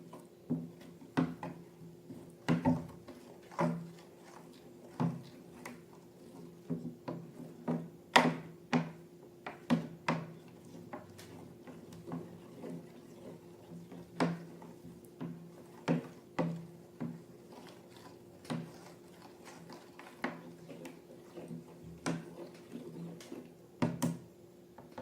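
Slime being handled and mixed: irregular sticky clicks and pops, some loud, at roughly one or two a second, over a faint steady low hum.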